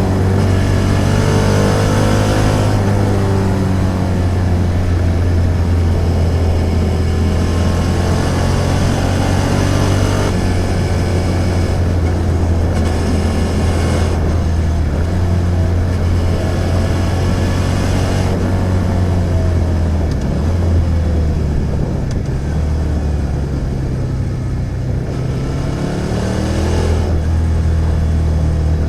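Suzuki SV650's 645 cc V-twin engine running under way, its note rising and falling several times as the rider works the throttle and shifts gears.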